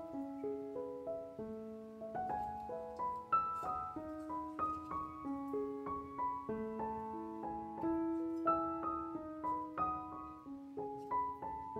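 Background piano music: a melody of single held notes over a lower line of notes.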